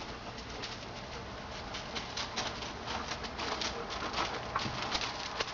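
A weird whizzing, whooshing noise of unknown origin: a quick, irregular patter of short whooshes and ticks, many a second, growing busier toward the end.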